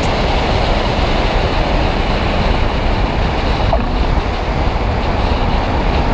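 Steady engine and wind noise of a small single-engine propeller airplane, with no change in pitch or level.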